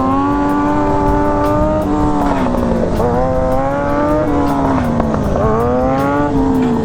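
Motorcycle engine under way, its pitch climbing and dropping back again and again as the rider works the throttle.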